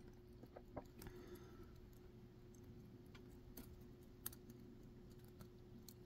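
Near silence with a few faint, scattered clicks of a lock pick working the pin stack inside a six-pin steel padlock core held under tension, over a low steady hum. The picker suspects a pin is overset.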